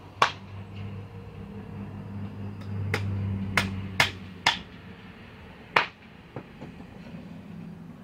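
A hammer driving nails into wooden boards: about six sharp, irregular strikes. A low steady hum runs underneath, swelling around three seconds in.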